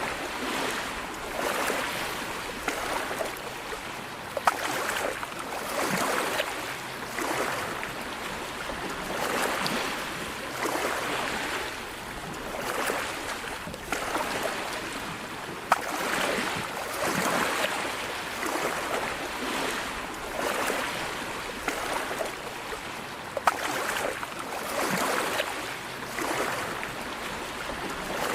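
Sea waves washing ashore, the surf swelling and falling every couple of seconds, with a few sharp clicks.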